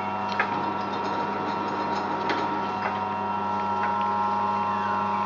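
George Birch metal planer running on its attached drive system: a steady mechanical hum with a few sharp clicks and brief falling squeaks.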